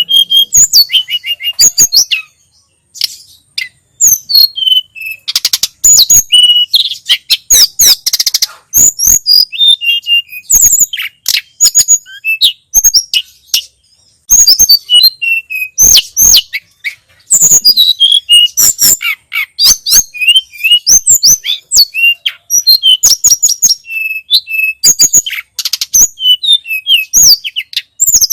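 A tledekan gunung (Sunda robin) singing: a fast, varied run of high whistled notes and chirps, with short breaks about two seconds in and around the middle.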